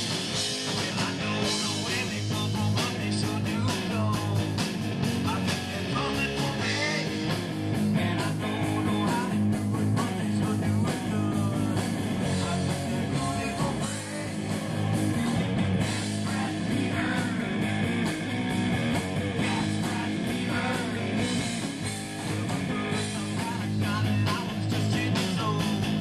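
Live rock band playing, with electric guitar over drums.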